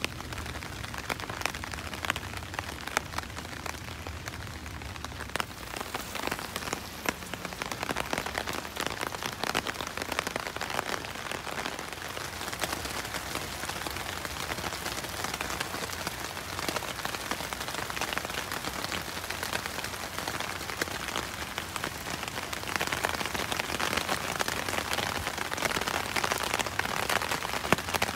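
Steady rain falling, with many single drops ticking close by. It grows a little louder in the last few seconds.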